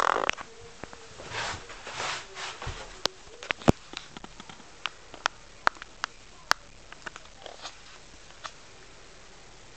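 Handling noise: a brief loud rustle at the start, soft rustling for a couple of seconds, then a scattering of sharp clicks and taps, the loudest a little before four seconds in and again at about six and a half seconds.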